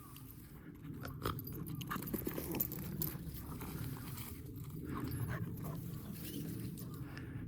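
A Kai Ken dog out on a walk, close to the microphone: steady rustling and scuffing with scattered light clicks and crunches.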